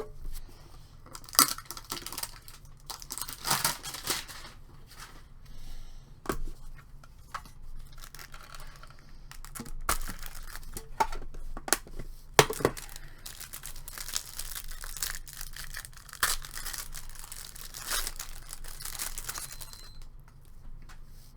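Trading card packs being torn open and the cards handled: a string of sharp rips and crinkles, with a denser stretch of steady crinkling in the second half that stops shortly before the end.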